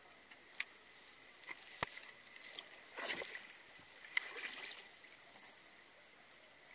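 Water lapping against a small boat's hull, with scattered knocks and ticks. There is a louder rustling splash about three seconds in and a sharp tick just after four seconds, followed by a brief run of small clicks.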